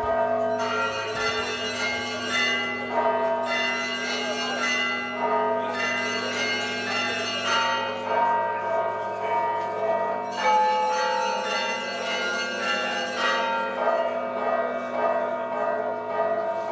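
Orthodox monastery church bells pealing together for a festive procession, many bells of different pitches ringing on without a break, the bright clangour swelling and easing every few seconds.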